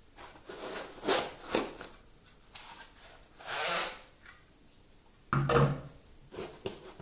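Unpacking noise: styrofoam packing and printer parts rubbing and scraping as they are lifted out, with a longer rustle about three and a half seconds in. A knock a little after five seconds, as a part is set down on the wooden table, is the loudest sound.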